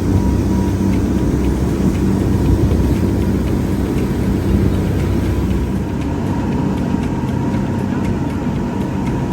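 A vehicle engine running steadily, a constant low drone with a faint steady higher tone above it.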